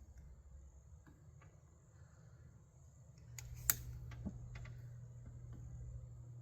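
A few light clicks and one sharp click about three and a half seconds in, over a low steady hum that starts just before it.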